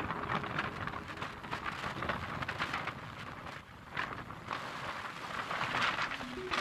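Steady crackly rushing noise of the camera moving along a road: wind and road noise on the microphone, with a faint tail of music fading out just after the start.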